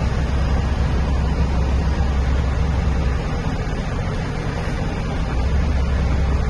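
Dump truck's diesel engine running with a steady low rumble, heard from inside the cab.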